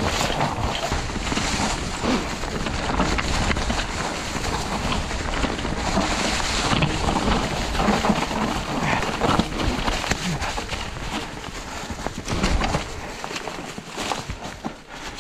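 Mountain e-bike rolling over a rough trail: a dense run of irregular knocks and rattles from the tyres, frame and chain over stones and roots, over a low rumble of wind on the microphone, easing off somewhat near the end.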